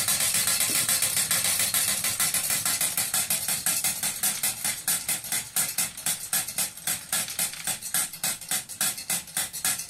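Wilesco toy steam roller's steam engine running with a rapid, even chuffing and a hiss of steam. The chuffs slow and spread apart toward the end as the boiler runs out of steam.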